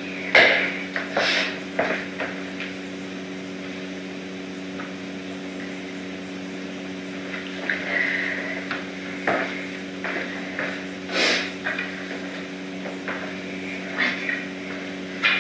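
Scattered knocks and clatters of a person moving about and tossing cat toys onto a hard floor, the loudest about half a second in and again about eleven seconds in, over a steady low hum.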